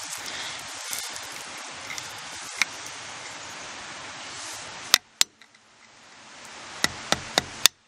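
A steady hiss, then a few sharp metallic clicks, two about five seconds in and four close together near the end. The clicks are a flathead screwdriver tip striking a trailer axle's cotter pin and spindle nut as the pin's legs are bent over to lock the nut.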